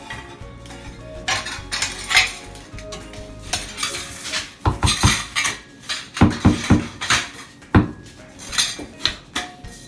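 Ceramic wall tiles clinking and knocking as they are handled, set into adhesive and tapped into place: irregular sharp clinks, with a loud cluster of knocks in the second half.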